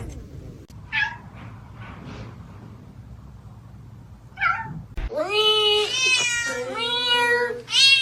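Kittens meowing: a few faint, short meows in the first half, then loud, drawn-out, high-pitched meows in quick succession from about five seconds in.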